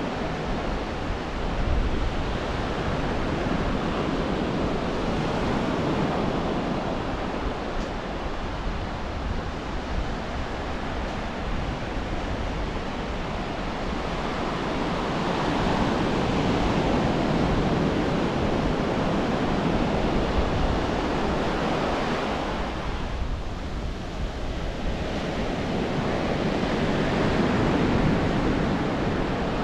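Ocean surf breaking and washing up the beach: a continuous rush of waves that swells and eases over several seconds, fuller in the middle and again near the end, with a brief lull about three-quarters of the way through.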